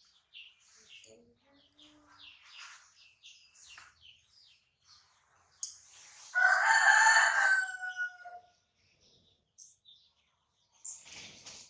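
A rooster crows once, loudly, for about a second and a half midway, its note falling away at the end. Faint scattered chirps come before and after it.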